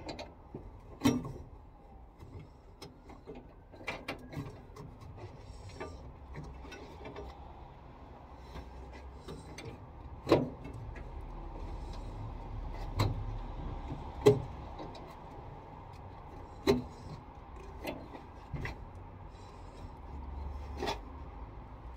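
Hand tools and metal parts clicking and knocking in a car's engine bay while radiator hose jubilee clips are worked on: a sharp click or knock every few seconds, with a low rumble underneath.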